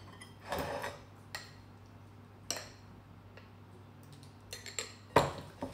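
A spoon knocking and scraping against a glass jar and a bowl as thick dressing is spooned out: a handful of separate light clinks and taps, the loudest near the end.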